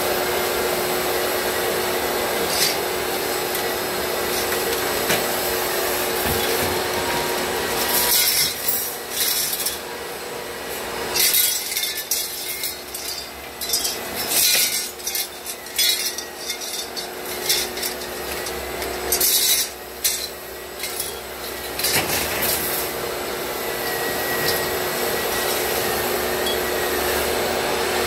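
Shop vacuum running steadily through the hose of a pole sander. Through the middle stretch the steady drone drops back and irregular scraping and rasping take over as the sanding head works the popcorn ceiling texture, then the steady drone returns.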